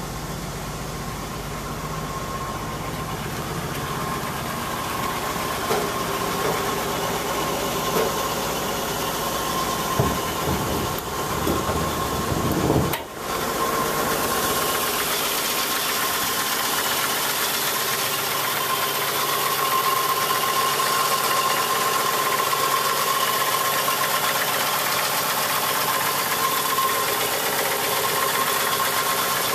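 A 1960 Chevrolet Bel Air's engine idling steadily, with a few brief knocks about ten to thirteen seconds in.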